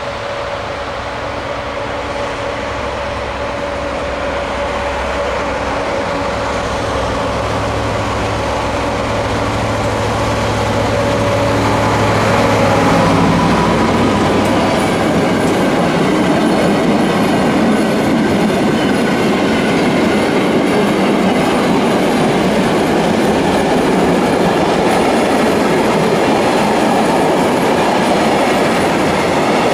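A DB Class 294 diesel-hydraulic locomotive approaching with a steady engine drone that grows louder until it passes, about 13 seconds in. A long train of empty freight wagons then rolls by with a continuous rushing rumble of wheels on the rails.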